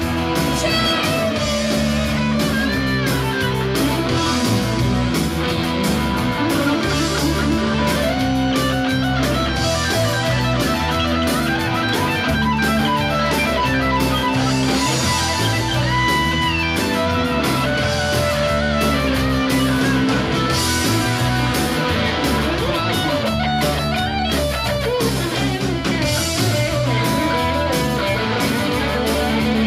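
Live rock band playing, led by two electric guitars over drums.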